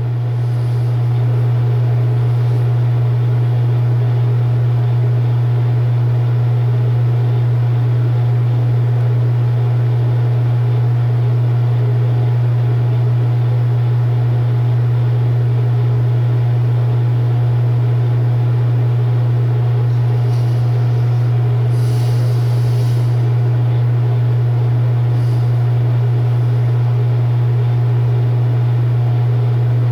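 A loud steady low hum on a telephone line held on hold, with faint hiss and a few light crackles about two-thirds of the way through.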